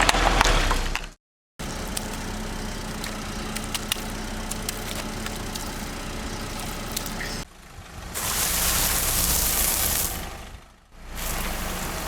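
A car engine running steadily, heard in short edited clips with abrupt cuts and a brief silent gap. About eight seconds in comes a louder hissing rush lasting roughly three seconds.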